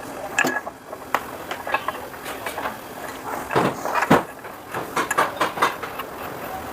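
Workshop clatter: irregular metal clanks and knocks from parts and tools being handled, some with a short ring.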